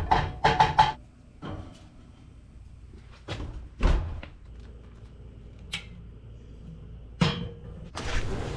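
Kitchen clatter: a spatula scraping a frying pan of scrambled eggs, then a few clunks and clicks at a gas range's knobs, the loudest thump about four seconds in. Near the end a glass door slides open.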